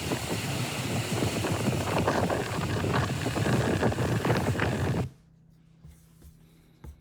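Strong wind buffeting the microphone over rushing water on a boat out in big waves, cutting off abruptly about five seconds in to a quiet room with a few faint ticks.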